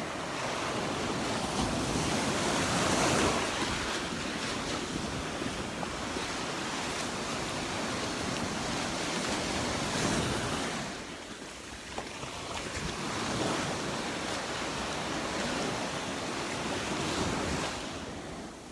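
Surf washing onto the beach, rising and falling in swells every few seconds, with wind noise on the microphone.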